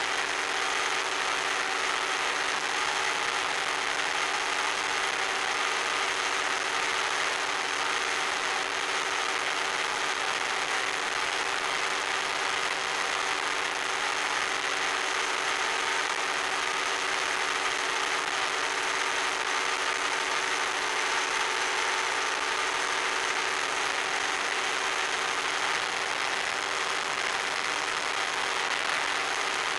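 RC plane's motor and propeller running at a constant cruise setting, heard as a steady drone over a dense hiss.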